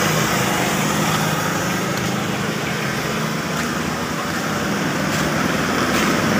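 A steady, even mechanical drone with a hiss over it, holding level throughout.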